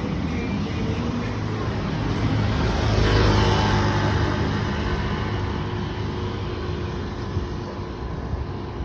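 A road vehicle passes close by: its engine and tyre noise builds to a peak about three seconds in, then slowly fades.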